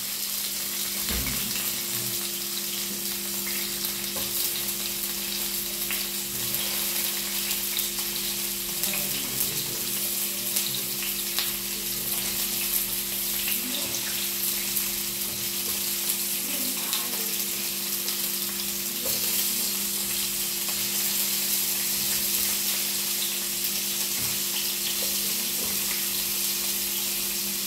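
Paneer cubes sizzling steadily in hot coconut oil, the sputter driven by the little water the fridge-stored paneer gives off. A steady low hum runs underneath, with now and then a faint tick as the cubes are turned.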